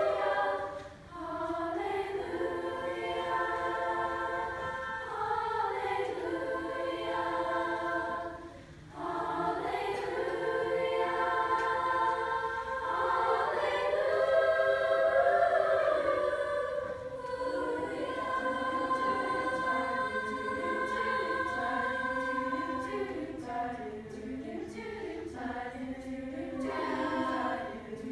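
Youth school choir singing together in long held phrases, breaking off briefly about a second in and again around nine seconds in.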